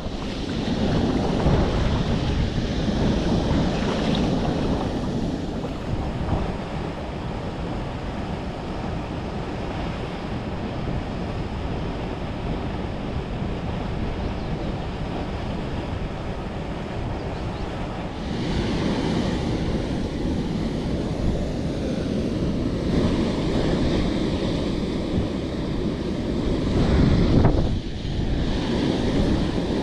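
Steady rush of river water below a waterfall, with wind buffeting the microphone. The sound shifts abruptly about two-thirds of the way through and again near the end.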